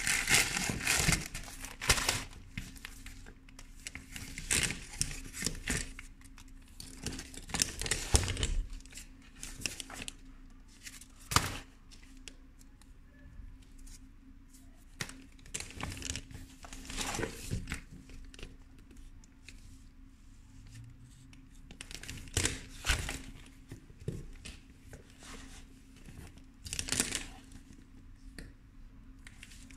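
Packaging being handled during an unboxing, crinkling and rustling in irregular bursts with quiet gaps between them, over a faint steady hum.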